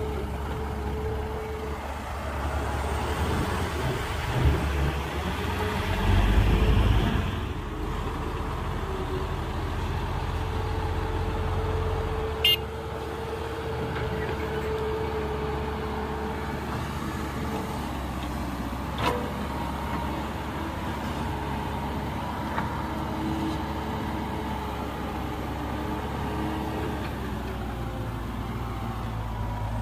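Heavy diesel machinery running steadily, swelling louder for a moment about six seconds in, with a few sharp knocks.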